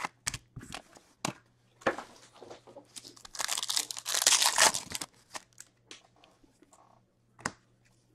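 Foil pack of 2017-18 Upper Deck Ice hockey cards crinkling as it is pulled from the box. About three seconds in it is torn open with a loud crinkling rip lasting a second and a half, followed by a few light clicks as the cards are handled.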